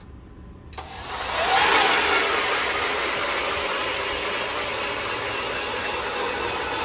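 Electric Jiffy Rogue ice auger starting up about a second in, its motor whining up to speed. It then drills steadily through the ice at its slow shack-mode setting.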